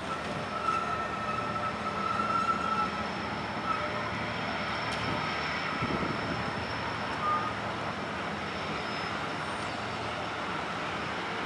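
Steady engine and traffic din around a ferry port: a departing high-speed passenger ferry's engines mixed with passing road vehicles. A few faint high squealing tones sound near the start.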